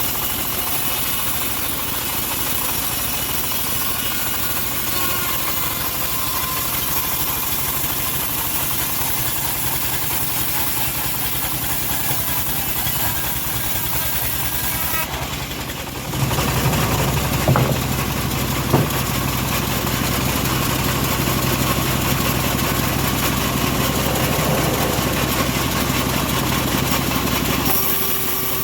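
Homemade bandsaw sawmill running steadily while sawing teak. About 16 seconds in it grows louder, with a deeper hum, and two sharp knocks follow shortly after.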